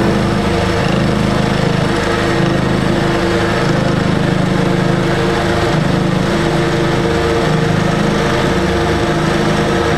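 Bridgeport milling machine running under load as its spinning friction stir welding tool churns through two stacked aluminum plates. A steady, loud machine drone.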